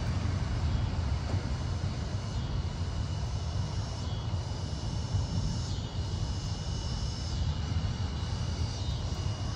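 Steady low outdoor rumble at an even level, with a continuous high-pitched insect drone over it.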